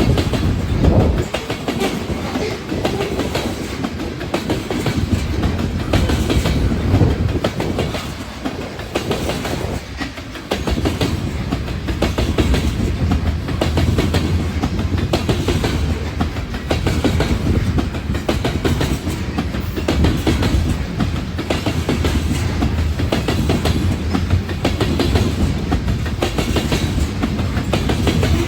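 A train passing, its railroad cars rolling by with a steady clickety-clack of wheels over the rail joints, over a continuous low rumble; the rumble eases briefly about a third of the way in, then picks up again.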